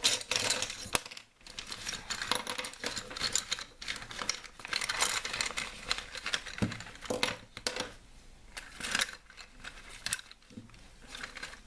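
Wooden coloured pencils clicking and clattering against one another as a handful is pushed into a pencil case, with the rustle of the case being handled.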